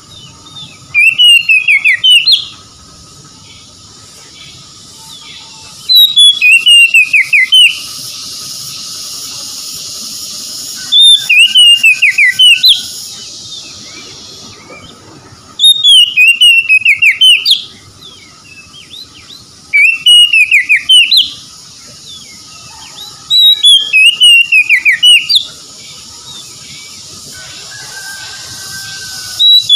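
Oriental magpie-robin singing: six loud phrases of rapid whistled notes that slide up and down, each a second or two long, about every four to five seconds, with a steady high hiss between phrases.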